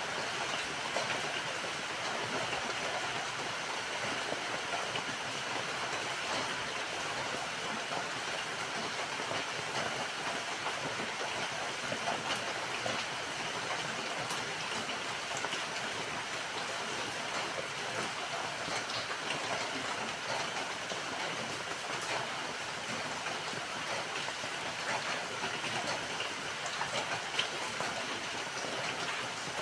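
Steady rainfall: a dense, even patter of drops, with now and then a single louder drop tick.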